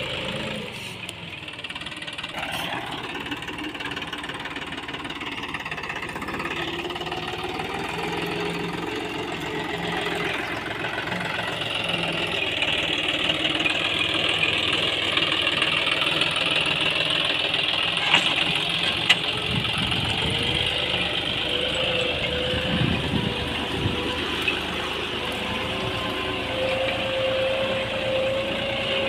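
John Deere 5405 tractor's three-cylinder diesel engine running steadily under load while it pulls a tillage implement through the soil, getting louder about a third of the way in. There are two sharp clicks about two-thirds of the way through.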